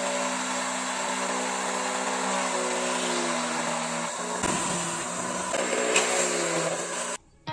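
Small bench drill press running with a steady motor whine while drilling holes through a thin white plastic board; the pitch dips and recovers as the bit bites. The sound cuts off abruptly near the end.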